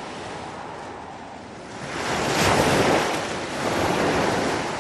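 Ocean surf washing ashore in two swells, the louder one about two seconds in and a slightly softer one near the end.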